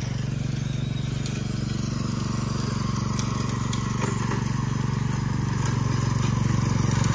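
Small riding lawn mower's engine running steadily while it mows, getting a little louder near the end as it comes closer.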